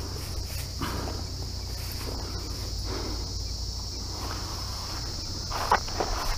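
Footsteps swishing through grass, one brief rustle about every second, the sharpest near the end, over a steady high chirring of insects.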